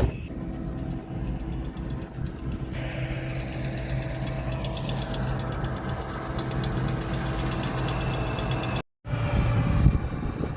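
Combine harvester engine running steadily, with a higher mechanical whirr joining in about three seconds in; the sound drops out for an instant near the end.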